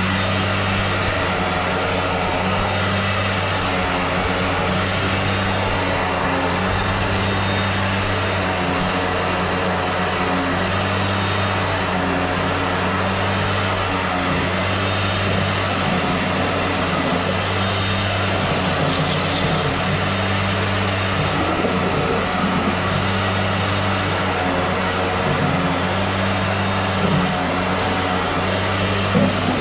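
A motor running steadily with a low hum that swells and fades every two to three seconds.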